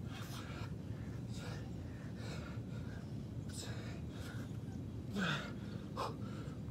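A man breathing hard through a set of push-ups: a sharp, hissy exhale about once a second, with two short voiced grunts falling in pitch near the end.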